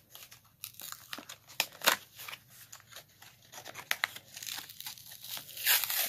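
Sealed package of mechanical pencils being pried and torn open by hand, crackling and crinkling in irregular bursts. The seal around the edge is really strong and the pack is hard to get open.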